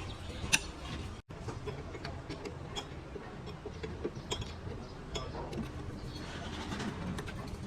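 Scattered light clicks and taps, the sharpest about half a second in, over a steady low hum, with a brief dropout of all sound just after a second in.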